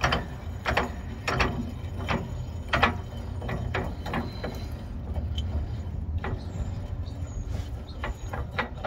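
Metal clicks and knocks as a bushing press tool's push plate and nut are unscrewed by hand along the threaded rod, at first a click about every two-thirds of a second, then more scattered. A steady low rumble runs underneath.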